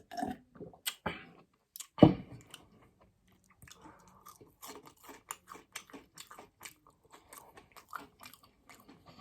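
Close-miked eating sounds: mouth clicks and smacks of chewing food. A single loud knock comes about two seconds in.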